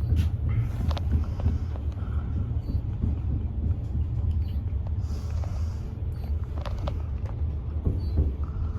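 Elevator car travelling in its shaft: a steady low rumble with a few light clicks and knocks.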